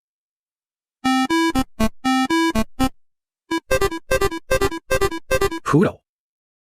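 Simple electronic keyboard tune of short, separate notes, played in two phrases with a brief pause between. It starts about a second in and stops about six seconds in.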